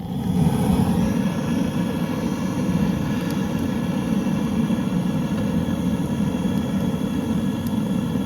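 Wood fire in an Everest S7 stove-fireplace drawing hard: a steady, low rushing noise of air pulled through the firebox and up the chimney. It grows louder right at the start. The owner takes it as a sign that the draft is working.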